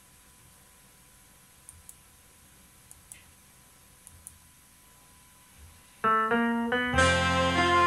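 A few faint clicks in pairs over quiet room tone, then about six seconds in an electronic keyboard starts the instrumental intro of a Viennese song (Wienerlied): a short string of single notes, then full accompaniment with bass and chords from about seven seconds in.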